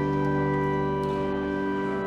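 Instrumental music: long, sustained chords on a keyboard, with no singing.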